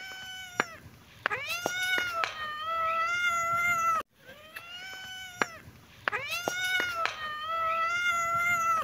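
Cat meowing: a short meow, then a long drawn-out meow held at a steady pitch. The same pair of meows plays twice in identical form, each time cutting off abruptly, like a repeated recording.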